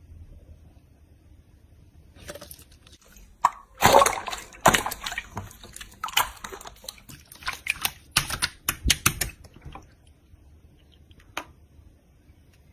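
Slime being squished and pressed by hand, giving a dense run of sticky clicks and pops for several seconds, starting about two seconds in, then a single pop near the end.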